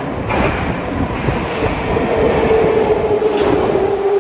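An 81-717/714 metro train running into the station from the tunnel, its wheels rumbling on the rails. A whine falls steadily in pitch as the train slows along the platform.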